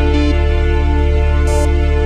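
Background music with sustained synthesizer chords over a steady bass.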